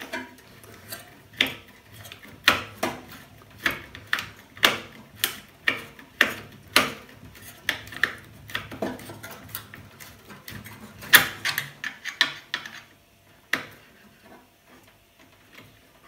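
Screwdriver turning a small screw out of a microwave oven's high-voltage capacitor bracket, with a steady run of clicks at about two a second. The clicks stop about 13 seconds in, leaving a few faint taps.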